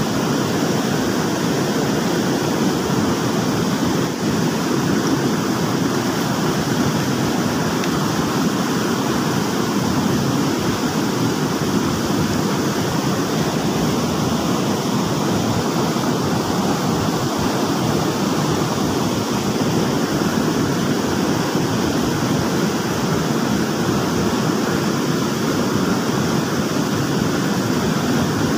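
Fast-flowing stream water rushing and churning over the rocks: a steady, unbroken noise.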